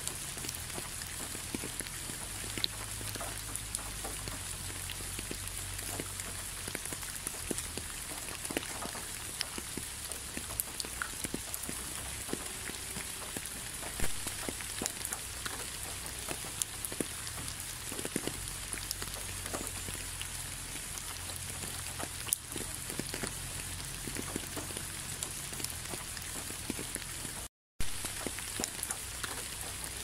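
Steady rain, a constant hiss with many separate drops striking close by. The sound cuts out for a split second near the end.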